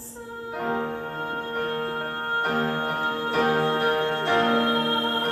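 Keyboard accompaniment playing slow sustained chords, a new chord about every second, in a pause in the singing of a ballad.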